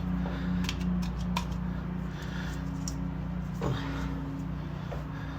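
A few light clicks and taps from hands and tools working a new rear main seal over the crankshaft lip, over a steady low hum.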